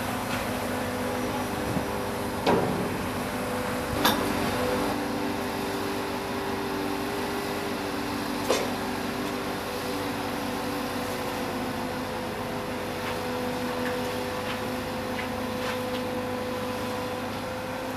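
A 400-tonne mobile crane's engine and hydraulics running with a steady hum made of several held tones, with a few sharp metallic knocks about two and a half, four and eight and a half seconds in.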